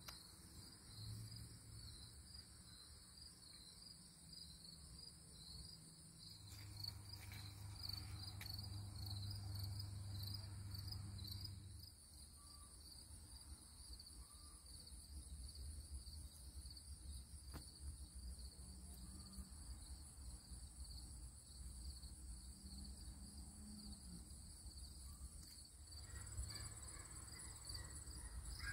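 Faint, steady high-pitched insect chirping that pulses continuously, with a low hum swelling in from about six seconds in and fading at about twelve.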